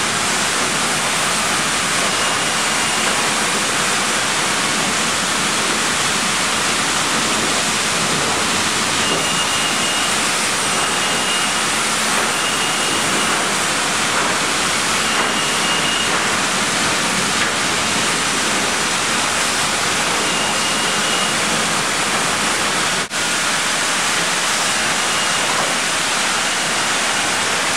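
Sawmill production line machinery running: a loud, dense, unbroken noise, with short high-pitched beeps recurring every few seconds.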